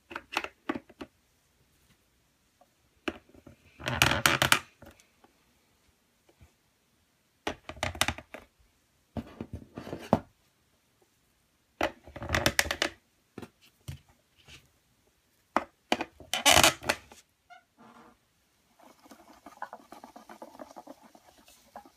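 Plastic toy figures being knocked and set down into the plastic seats of a toy bus: short clusters of clacks and taps every few seconds, then a softer rustling near the end.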